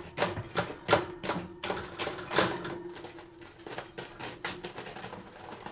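Irregular clicking and clattering of a utensil working through caramel-coated popcorn on a metal sheet pan. The clicks come quickly at first, then grow sparser and quieter toward the end, over a faint steady hum.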